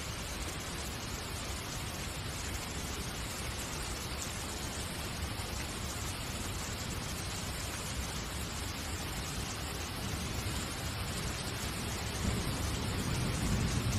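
A steady, even rushing hiss with a low rumble under it, a little louder with a few low bumps in the last couple of seconds.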